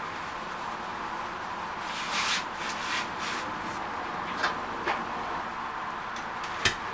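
A black umbrella being opened over a steady hiss of heavy rain: its fabric canopy rustles and swishes several times, with a few sharp clicks from its frame, the loudest near the end.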